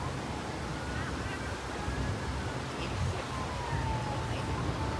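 Steady low wind rumble on the microphone outdoors, with a few faint thin tones gliding slowly downward in pitch.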